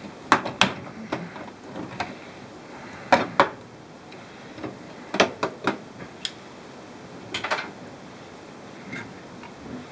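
Kitchen handling clatter: clusters of sharp metal clicks and knocks, three or four strikes at a time, repeating a few times.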